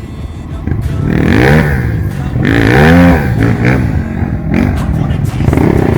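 Trail motorcycle engine revving up and down hard in two surges, then running on at lower revs, as the bike is pushed through slippery mud.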